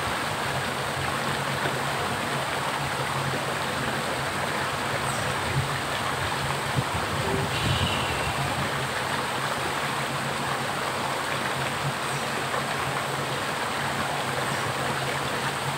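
Small rocky stream flowing steadily, a constant rush of water.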